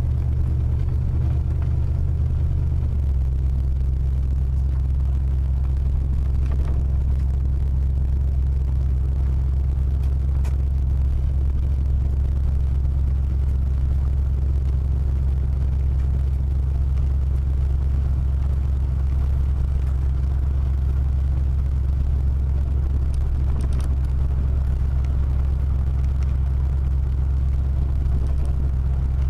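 Car driving along a gravel road, heard from inside the cabin: a steady low rumble of engine and tyres that shifts slightly about three seconds in.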